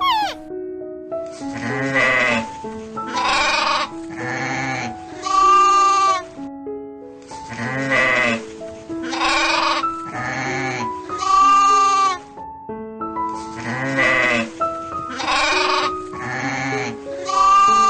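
Goats bleating over background music: a run of four wavering bleats, repeated three times in the same pattern.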